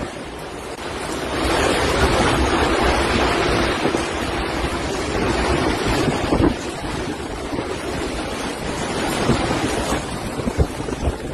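Strong storm wind gusting over the microphone in a loud rushing noise that swells about a second in and eases a little after about six and a half seconds.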